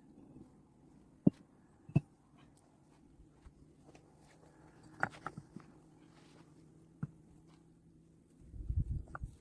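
Sharp knocks of stone being handled during dry-stone building: two loud single knocks about a second apart, a quick cluster of lighter clicks a few seconds later, and a low scraping rumble near the end.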